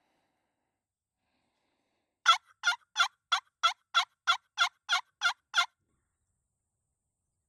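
A run of eleven short, evenly spaced turkey yelps, about three a second, starting about two seconds in and stopping abruptly.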